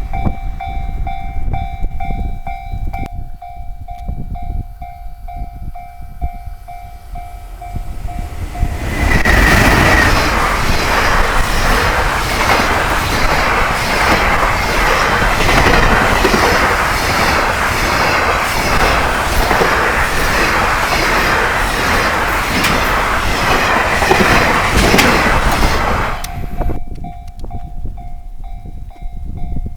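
A Japanese level-crossing warning bell rings in a steady repeating clang. About nine seconds in, a train passes over the crossing, its wheels clacking rhythmically over the rail joints for about seventeen seconds and drowning out the bell. The bell rings on after the train has gone.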